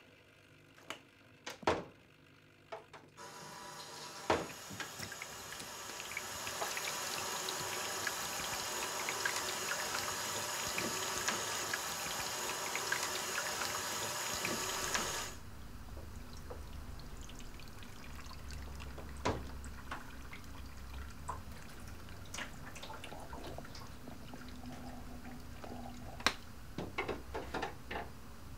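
Water running from a tap into a darkroom print-washing tray, starting after a few clicks, building to a loud steady pour and cutting off suddenly about halfway through. A quieter flow with scattered drips and clicks continues after that.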